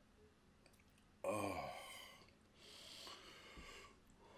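A man's sudden disgusted groan from the throat, falling in pitch and trailing off breathily, as he reacts to the taste of a cricket he is eating. It is followed by a long breath blown out through pursed lips.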